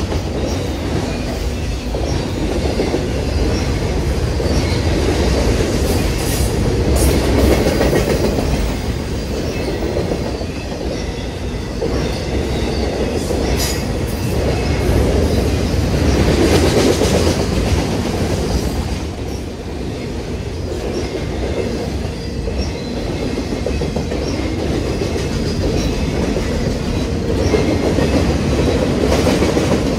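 Freight train of autorack cars passing at close range: the steady rumble of steel wheels on rail.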